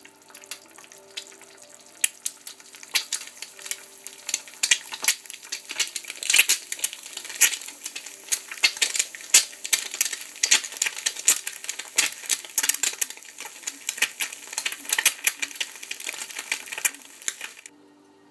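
An egg frying in a small non-stick pan, sizzling with a dense crackle of sharp spits and pops. The crackling builds over the first few seconds and cuts off suddenly near the end.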